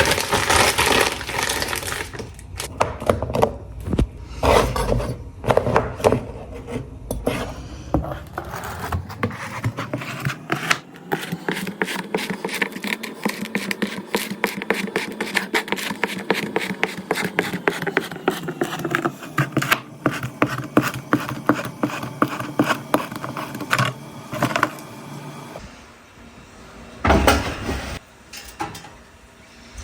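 Close-miked clicks, taps and scrapes of food and dishes being handled: a dense, irregular run of small knocks, quieter near the end.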